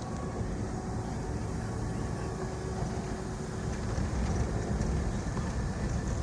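Steady rumble of a car driving along a road, engine and tyre noise with no sudden events.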